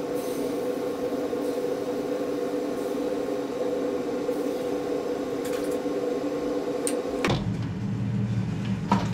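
Steady hum of a running air fryer's fan in a small kitchen. There is a knock about seven seconds in, after which the hum drops lower, and a few light clicks near the end as the tray of hot pudding tins is slid back in.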